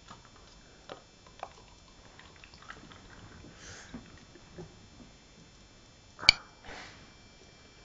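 Faint rustles and small clicks in a quiet room, with soft breath-like sniffs, and one sharp click about six seconds in.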